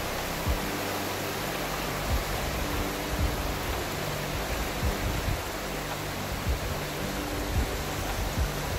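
Shallow, rocky forest river rushing over stones: a steady, even rush of water, with a few short dull low thumps scattered through it.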